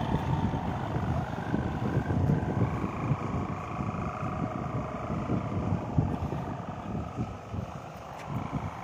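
Wind buffeting the microphone, with the faint steady humming tones of sawangan, bamboo kite hummers on large flying kites, drifting slightly in pitch.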